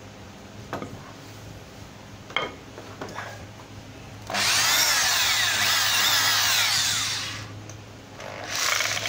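Hitachi DH18VB corded hammer drill boring into a wooden log: a loud run of about three seconds starting about four seconds in, after a few knocks of handling, and the drill starts up again just before the end.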